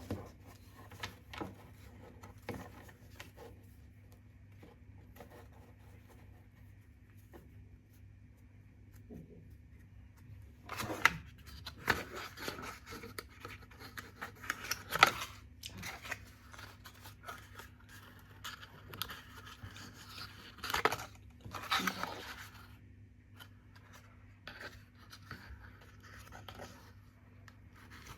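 Scissors cutting paper or card, with scraping and rustling of the paper. There are scattered light snips early on, and the busiest, loudest cutting comes from about 11 to 16 seconds in and again around 21 to 22 seconds in.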